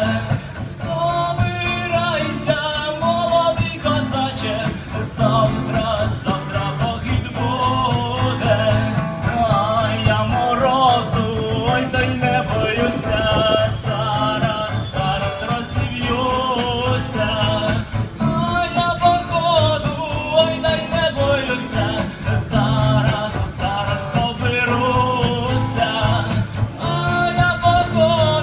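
A solo singer strumming an acoustic guitar and singing a Ukrainian song, amplified through stage loudspeakers.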